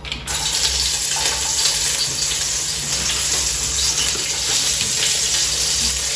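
Food tipped from a bowl into a hot pot on a gas cooker, sizzling and frying. The sizzle starts suddenly just after the beginning and then goes on steadily.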